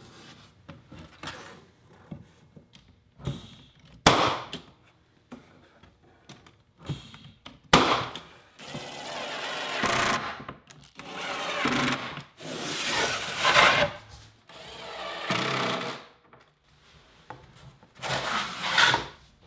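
Two sharp knocks, then a cordless impact driver running in five short bursts as it drives screws through pine drawer-runner cleats into the plywood cabinet side.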